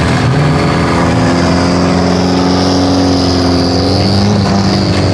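Nissan 240SX drift car's engine running at low revs as the car rolls slowly past, a steady drone that rises a little midway and eases back down.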